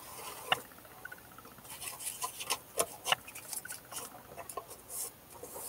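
Hands handling a Hardanger fiddle at its neck and nut, setting a small clamp: scattered sharp clicks and light scraping, with two short runs of rapid fine ticking.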